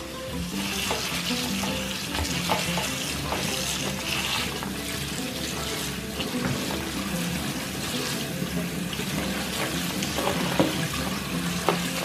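Kitchen tap running steadily into a stainless steel sink while shredded red cabbage is rinsed and turned over by hand in a plastic colander, with a few sharp clicks from the handling.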